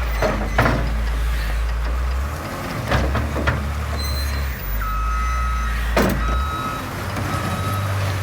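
Backhoe diesel engine running under load while grading asphalt millings, with several sharp clanks and scrapes of the bucket on the millings. From about five seconds in, a backup alarm beeps in long steady pulses.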